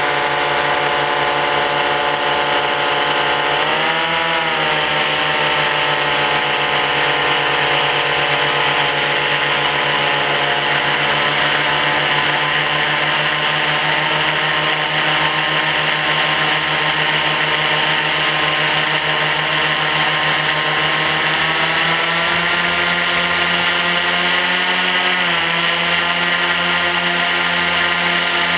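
Propeller motors of a remote-control blimp running with a steady whine close to the camera. The pitch rises briefly about four seconds in, and settles a little higher after about twenty-two seconds as the motors speed up.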